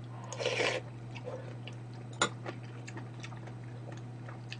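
A short slurp as a spoonful of soup goes into the mouth, then quiet chewing with small wet mouth clicks and one sharper click about two seconds in. A steady low hum sits underneath.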